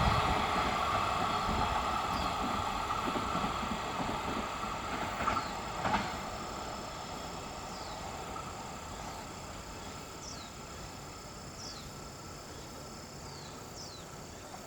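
Container freight train behind an EF210 electric locomotive running away past the level crossing, its wheel and wagon noise fading steadily. There are two brief knocks about five and six seconds in, and a few short falling chirps from a bird in the second half.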